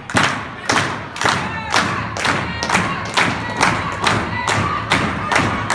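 Crowd stamping and clapping in unison, a steady beat of sharp thumps about two a second, each with a brief ringing tail.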